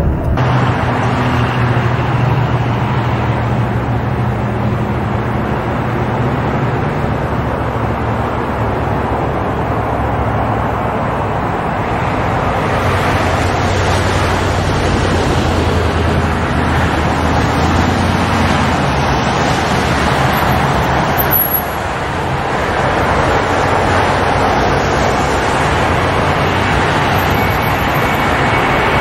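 Continuous jet airliner engine noise, steady and loud, with a brief dip about two-thirds of the way through.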